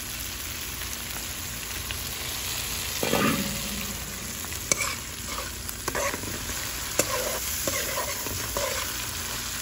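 Cumin seeds, garlic and spring onion frying in hot oil in an aluminium pot, sizzling steadily, with a metal spoon scraping and clinking against the pot as it is stirred. A brief muffled bump about three seconds in.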